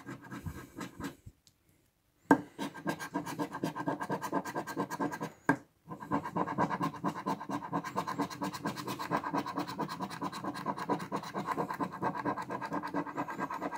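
A coin scratching the silver coating off an FDJ Millionnaire scratch ticket in quick back-and-forth strokes. The scratching gets going about two seconds in, stops briefly a little before the middle, then runs on without a break.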